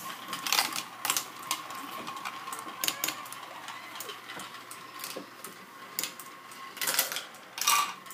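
Plastic toy marble run running: its motorized marble lift gives a thin, steady whine while the marbles click and clatter irregularly along the plastic tracks and lift, with a louder rattle about seven seconds in.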